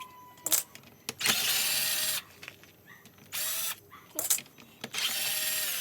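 Cordless power driver with an 8mm socket run in three short bursts, the motor whirring up and winding down each time, as it spins out the clutch cover bolts of a Yamaha RXZ engine; short metallic clicks between the runs.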